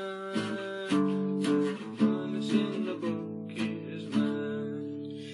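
Acoustic guitar strumming chords as the introduction to a gospel song, with no voice yet.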